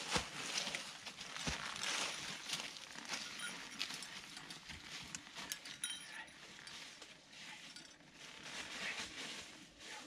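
Footsteps of a hiker and a dog crunching through dry fallen leaves and scuffing on rock, with light clinks and a couple of sharp knocks in the first two seconds, growing fainter as they climb away.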